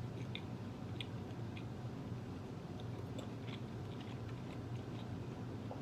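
Close-miked mouth sounds of a person chewing tender beef: soft, wet clicks of the mouth every half second or so, over a low steady hum.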